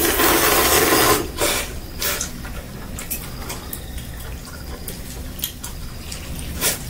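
Egg noodles being slurped: one long, loud slurp lasting about a second, two shorter slurps just after, then softer wet chewing and mouth clicks.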